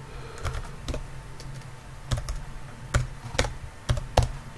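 Typing on a computer keyboard: a quick, uneven run of keystrokes, a few of them struck harder, as a string of random letters is entered.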